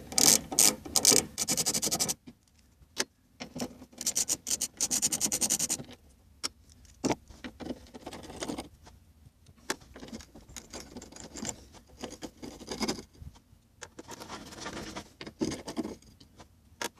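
Socket ratchet with an extension clicking in two quick runs of a couple of seconds each, backing out the 8 mm bolts that hold the fuel pump module flange. Scattered light clinks and scrapes follow as the small metal bolts are handled.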